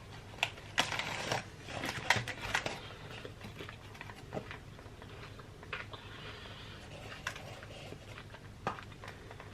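Someone eating millionaire shortbread: chewing with small crunches, and scattered light clicks and taps.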